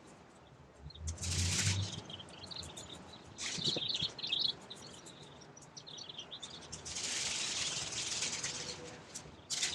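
Leafy branches of a fruit tree rustling and swishing in irregular bursts as they are trimmed and pulled out, the longest burst near the end, with a few short high chirps about four seconds in.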